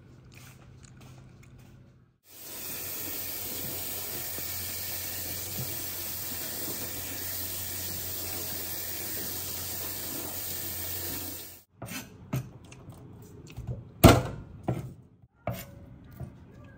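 Kitchen tap running steadily onto sweet potato leaves in a stainless steel colander in the sink while they are rinsed by hand. The water stops abruptly, and a few sharp knocks and taps follow, the loudest about two-thirds of the way through, as the cutting starts on a wooden chopping board.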